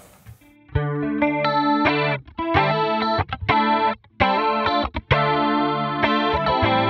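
Clean electric guitar played through the Line 6 Helix's stereo 70s Chorus model, with the chorus and vibrato rates set low. After a brief pause, chords ring out in short phrases with small gaps between them.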